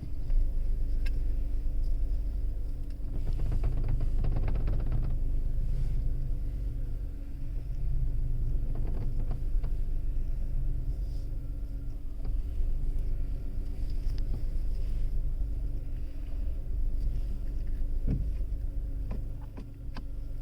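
Skoda Kushaq running at parking speed with a steady low hum, broken by bouts of rapid rattling, longest a few seconds in and again around nine seconds.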